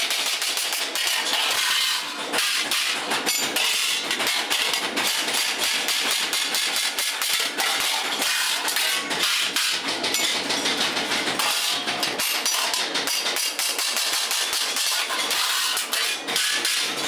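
A small hand hammer rapidly and continuously tapping a hand punch or chisel against sheet steel, a run of sharp metallic clinks several times a second, as the outline of a shovel blank is marked out.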